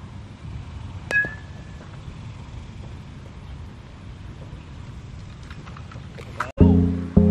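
Wind rumbling on the microphone, with one sharp ringing ping about a second in. Music starts abruptly near the end.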